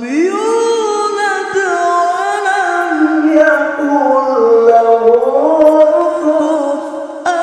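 Male qari reciting the Qur'an in melodic tilawah style. His voice sweeps up at the start into a long, high held note, then winds through wavering ornamented turns, dipping lower and rising again later on.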